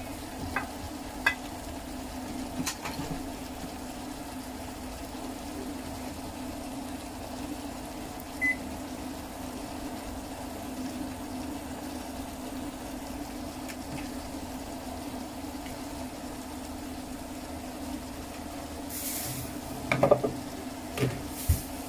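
Vegetables simmering in a little water in a non-stick pan on an induction cooktop, over the cooktop's steady hum. A few sharp knocks near the end.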